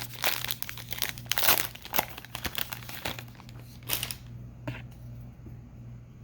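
Foil wrapper of a Panini Prizm card pack crinkling and tearing as it is opened by hand, the crackling stopping about four seconds in, with one last short crinkle soon after. A low steady hum runs underneath.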